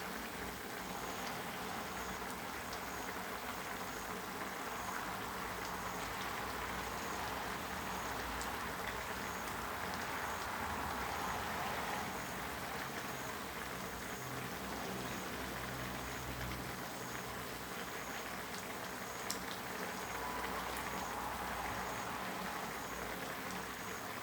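A pot of red chicken curry with pickled bamboo shoots bubbling at a steady boil on the stove, giving an even, continuous bubbling hiss. A single small click sounds about three-quarters of the way through.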